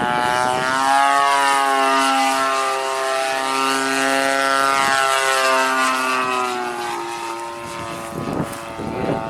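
Gas two-stroke engine and propeller of a large RC model plane (Seagull Models RV-8) in flight, a steady buzzing drone whose pitch wavers a little. It is loudest about a second in and fades somewhat near the end as the plane draws away.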